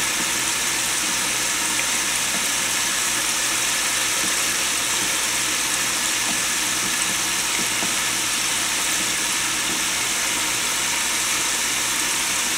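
Chicken pieces frying in hot grease at about 295°F in an open aluminium pressure cooker: a steady sizzling hiss.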